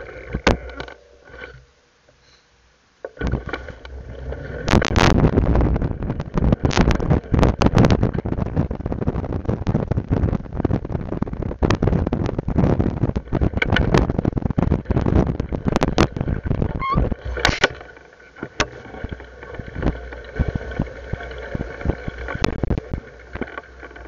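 Jolting rattles, knocks and rushing noise from a camera carried on a ride over a rough, grassy trail. A brief hush near the start, then dense, loud rattling from about three seconds in that eases after about eighteen seconds.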